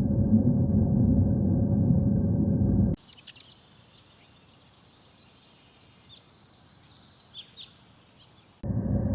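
A loud steady low rumbling noise cuts off after about three seconds to a quiet outdoor stretch with a few short high bird chirps, three in quick succession and then a couple more. The rumbling noise cuts back in near the end.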